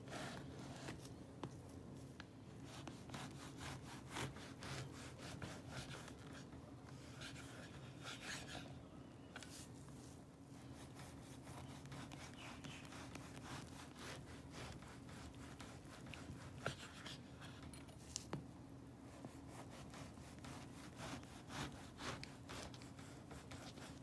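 Long Victorinox sashimi knife sawing back and forth through a crusty loaf on a wooden board, the blade rasping against the crust in many short crackles.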